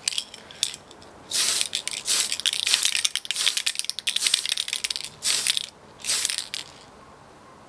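Tamiya aerosol spray paint can spraying a model kit part in bursts: one long hissing burst of about two and a half seconds, then two short bursts near the end.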